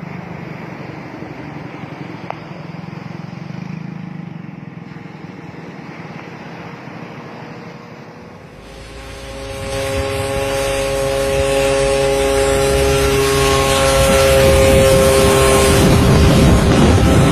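Homemade aircraft's Kawasaki Ninja motorcycle engine running. About halfway through it becomes much louder, a steady multi-tone engine note over a loud rushing noise, as the engine is run up.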